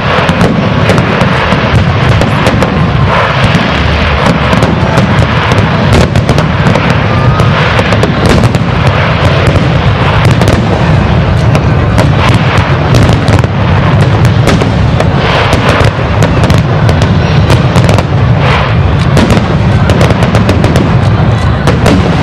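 Aerial fireworks shells bursting in a dense, continuous barrage: loud booms several times a second over a constant rumble, with crackling from the glittering stars.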